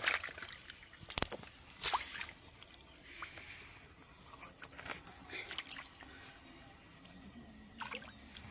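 Hands squelching and digging in wet riverbank sand, with water dripping and several short sharp wet slaps, the loudest about one and two seconds in.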